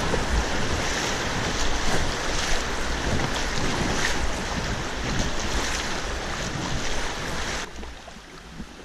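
Rushing whitewater of a river rapid splashing around an inflatable kayak, with wind rumble on the microphone. About a second before the end the sound drops away abruptly to a much quieter hush.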